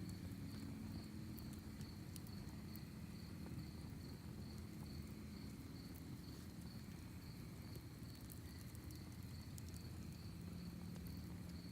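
Crickets chirping in a steady pulse, about three chirps a second, over the faint crackle and occasional pops of a wood campfire.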